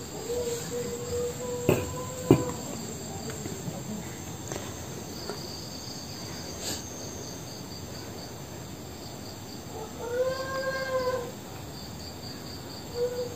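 A faint, high crying voice wailing in long held notes, twice: in the first two seconds and again about ten seconds in, bending up and down the second time. Crickets chirp steadily underneath, and two sharp clicks come about two seconds in.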